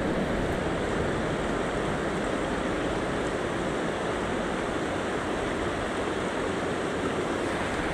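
Steady rush of river rapids flowing over a stony riverbed.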